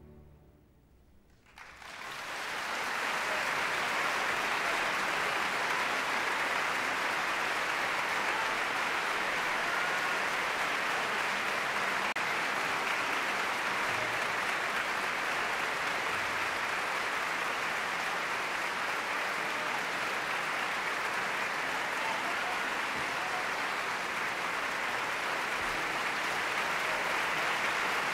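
Large theatre audience applauding: after a brief hush the clapping swells up quickly about two seconds in, then carries on steadily.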